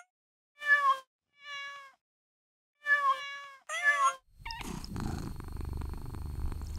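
A domestic cat meowing four times in short, separate meows, the second one quieter. From about four seconds in, a steady low rumbling noise follows.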